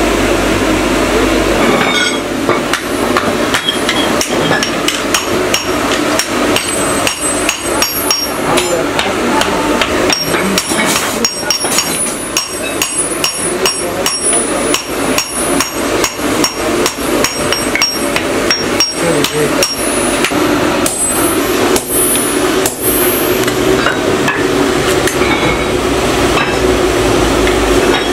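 Hand hammer striking a red-hot steel sickle blade on an anvil in rapid, uneven blows, with a high metallic ring after many strikes. A steady rushing hum from the coal forge fills the first couple of seconds and returns as the hammering thins near the end.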